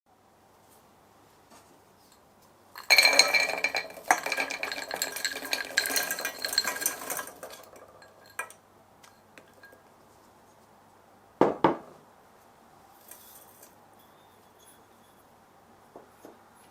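A utensil clinking and scraping against a ringing dish for about four and a half seconds, then a single sharp knock about eleven and a half seconds in, with a few faint taps.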